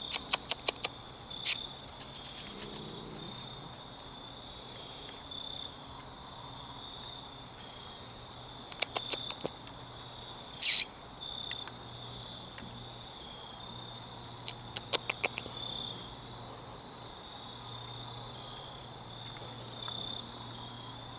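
Crickets trilling steadily in a high continuous chirr, with a few short bursts of rapid sharp clicks: near the start, around nine seconds, a single louder crackle just before eleven seconds, and again around fifteen seconds.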